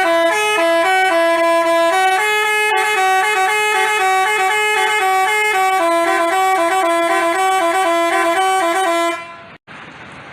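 Telolet bus horn of the basuri type playing a tune of short, stepped notes, several horn tones sounding together. It cuts off suddenly about nine seconds in, leaving only faint noise.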